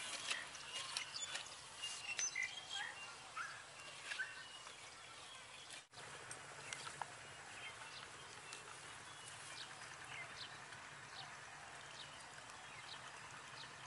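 Outdoor ambience with birds chirping in short calls, mixed with light clicks of a metal spoon scraping watermelon flesh. After a break about six seconds in, a steady background hiss with a few faint clicks.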